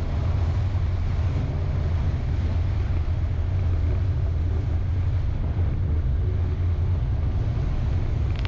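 Steady low rumble of a vehicle driving on a dirt road, heard from inside the cabin.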